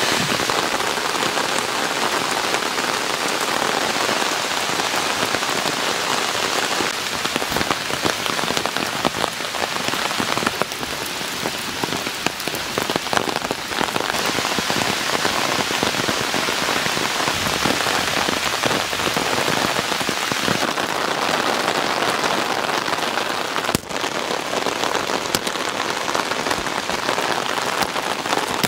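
Monsoon rain falling steadily: a dense hiss of rain with many individual drops ticking close by.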